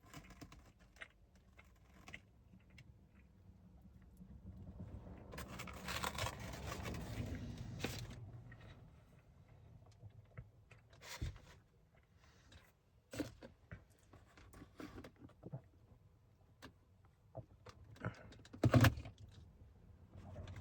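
Handling noises while eating a burger and fries: scattered small clicks and knocks, a rustling stretch about five to eight seconds in, and one louder knock near the end.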